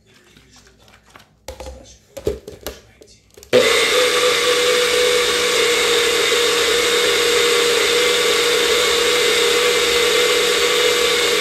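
A few clunks as the NutriBullet cup is fitted onto its base. About three and a half seconds in, the NutriBullet blender's motor starts abruptly and runs at a steady, high whirr while the cup is held pressed down, blending a thick avocado sauce.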